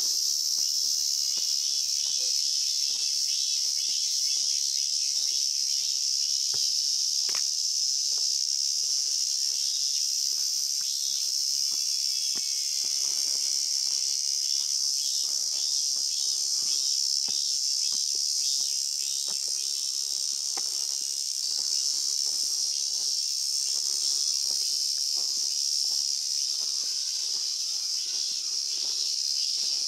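Cicadas droning in a steady, high-pitched chorus, with faint footsteps on stone steps at a walking pace beneath it.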